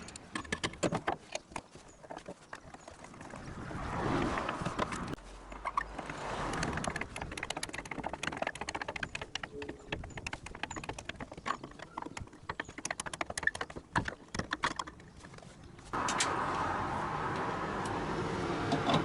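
Hand-tool and metal-part handling: a run of irregular clicks, taps and knocks as seat belt anchor brackets are worked on, broken into several short takes, with a steadier noisy stretch near the end.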